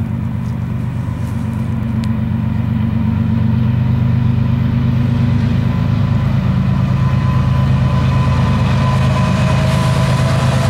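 Diesel-electric freight locomotives running under power as the train approaches, the low engine drone growing louder over the first few seconds and then holding steady.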